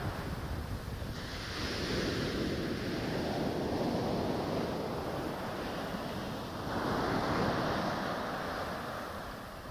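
Small sea waves breaking and washing up a sandy beach, the surf swelling twice, with wind rumbling on the microphone.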